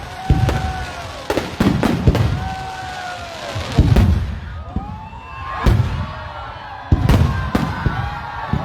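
Aerial fireworks bursting in quick succession: sharp bangs with low booms, several each second or two.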